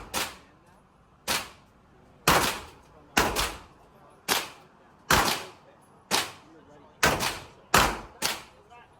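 Handgun shots on an indoor range: about a dozen sharp cracks, roughly one a second with a few fired close together in pairs, each followed by a short echo off the range walls.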